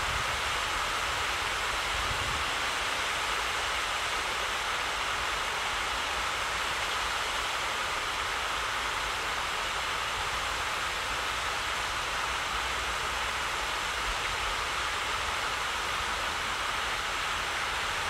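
Steady rushing outdoor background noise, an even hiss with no bird calls, with low wind rumble on the microphone in the first two seconds.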